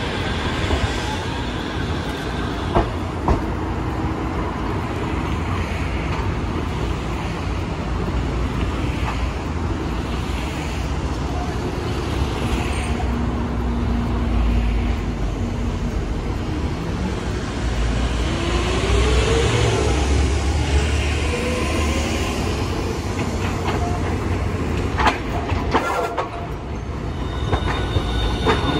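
Hiroshima Electric Railway streetcars running on street track amid city traffic: a rumble of wheels and motors, with a rising whine about two-thirds of the way through. Near the end a low-floor articulated Green Mover tram comes by close, its wheels clacking over rail joints.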